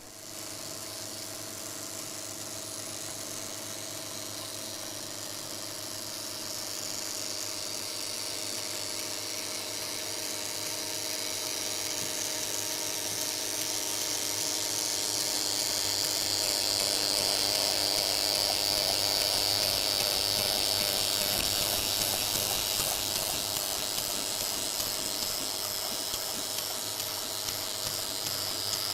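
Flying-spot telecine film machine running, its projector-like mechanism pulling film over sprockets and rollers: a steady mechanical whirr with hiss. It starts abruptly and grows somewhat louder over the first half.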